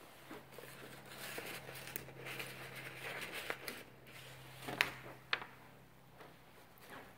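Faint rustling handling noise of a hand-held phone being carried through a room, over a low steady hum that fades near the end. Two sharp clicks sound about five seconds in, half a second apart.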